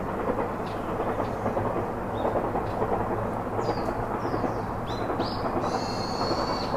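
Birds chirping in short, falling notes over a steady rushing background noise; about five seconds in, a bird's held whistle-like note starts and runs on.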